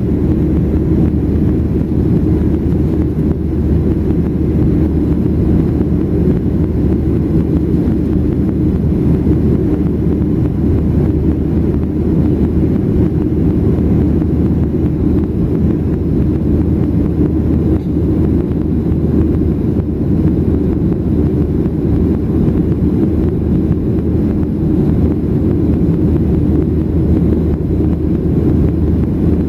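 Boeing 737-800 cabin noise during the climb after takeoff: the CFM56-7B engines and the airflow over the fuselage, heard from a window seat as a steady, deep, even rush with a low hum underneath and no change throughout.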